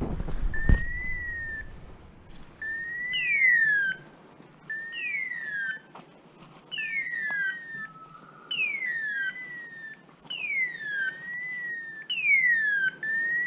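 Hunting dogs' beeper collars sounding over and over: a short electronic beep followed by a falling screech-like tone, the pair repeating about every one and a half to two seconds. A loud low thump comes about a second in.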